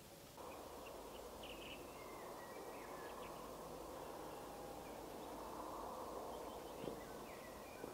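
Faint outdoor ambience: birds chirping and calling over a steady rushing noise that steps up about half a second in. A short sharp sound comes about seven seconds in.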